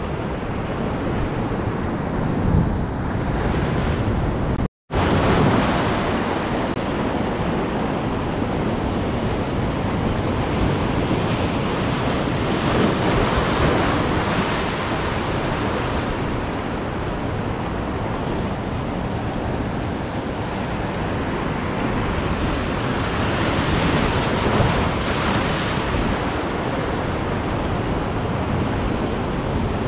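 Ocean surf breaking and washing over rocks, a steady rushing, with wind on the microphone. The sound cuts out completely for a moment about five seconds in.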